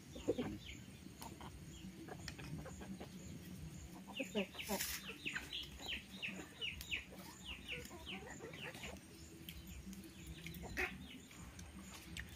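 Chickens calling in runs of short, falling chirps, busiest a few seconds in. Now and then a metal ladle clinks against steel pans and plates, most sharply right at the start.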